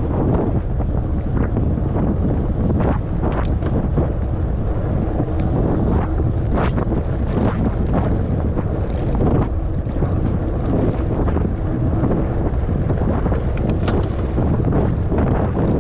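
Wind buffeting the microphone of a moving Lectric XPeak 2.0 e-bike on an off-road trail, with frequent irregular knocks and rattles from the bike over rough ground.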